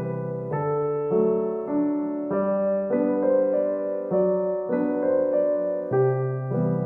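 Background music: a gentle solo piano piece playing slow chords, the notes changing about every half second.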